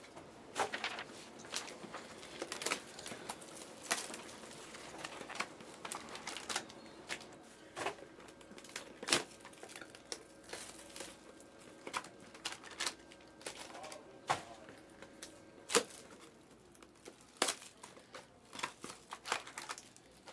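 Plastic card packaging and wrappers crinkling and tearing as trading cards are handled, with irregular sharp clicks and crackles.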